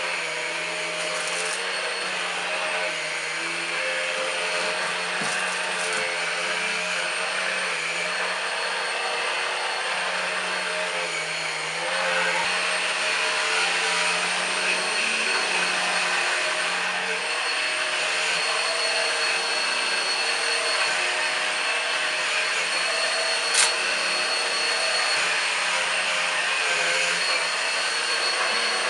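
Numatic Henry Quick cordless stick vacuum running steadily, with a steady motor hum and whine. It gets louder about twelve seconds in, and one sharp click comes near the end.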